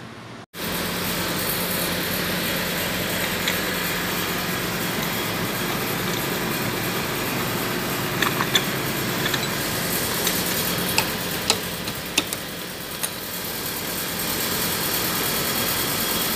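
Steady machinery noise, a loud even hiss with a low hum under it, with a few sharp metallic clicks in the middle.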